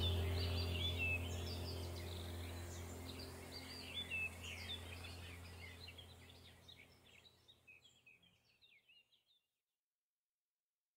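Small birds chirping over a low steady drone, the whole fading out over about eight seconds into silence.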